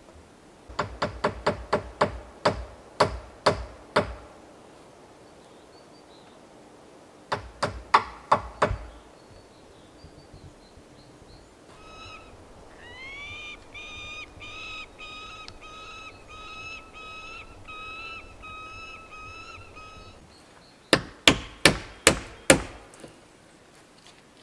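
Three runs of sharp hand-tool blows on timber: about ten quick strikes, then six, then six more near the end. Between the second and third runs, a bird calls over and over, about two notes a second.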